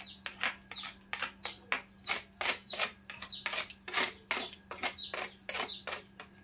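Quick, irregular scraping strokes, about four a second, each with a short falling squeak: a utensil scraping the last of the sticky steamed glutinous rice out of the cookware.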